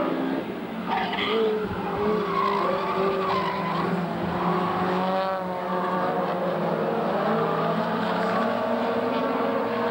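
Several saloon race cars' engines running hard together as the pack races through a bend, with tyres squealing in wavering tones now and then.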